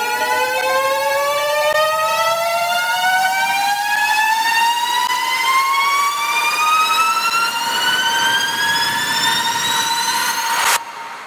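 A synthesized riser in a film soundtrack: one electronic tone with overtones climbs slowly and steadily in pitch over a steady higher tone. It cuts off abruptly about a second before the end.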